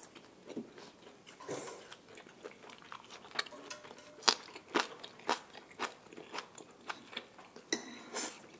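Close-miked eating sounds: a person biting into and chewing green onion kimchi (pa-kimchi), with a run of sharp crunches through the middle.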